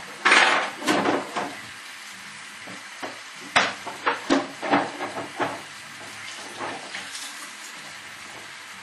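Metal clinks and clatters against a saucepan in two quick runs, over the steady sizzle of meat rolls (zrazy) frying in a pan.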